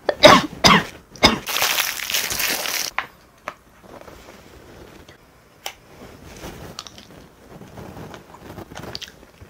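Eating sounds: a few sharp knocks, then a loud rustle lasting about a second and a half near the start. After it come occasional light clicks of a fork against a takeout bowl and soft chewing.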